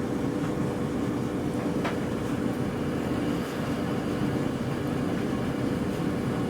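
Gas furnace fan running steadily: a constant low whir with a steady hum tone over it and a few faint ticks.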